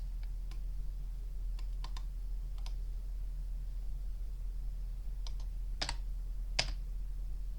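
Scattered clicks of computer keys and mouse buttons, some in quick pairs, over a steady low hum.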